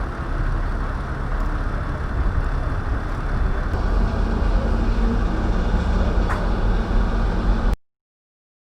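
Steady low rumble of engines and machinery, with a faint hum coming in about halfway through; it cuts off suddenly near the end.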